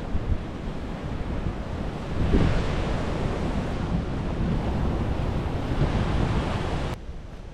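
Ocean surf washing in, with wind buffeting the microphone. The wash swells up about two seconds in, and the sound drops away suddenly near the end.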